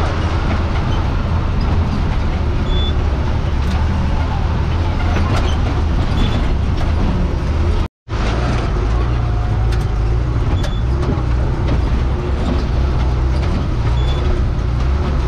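Bus engine running under load on a rough dirt road, heard from inside the bus as a steady low drone with scattered knocks and rattles from the body. The sound drops out for an instant about halfway through, at an edit.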